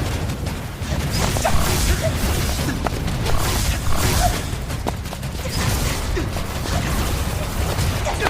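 Dramatic sound-effect rumble of a magic seal collapsing: a steady deep rumbling with grinding and creaking over it, with faint background music.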